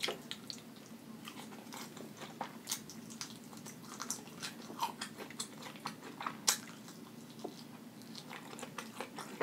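Close-miked chewing and biting of fried chicken wing meat: irregular wet clicks and smacks of a mouth eating.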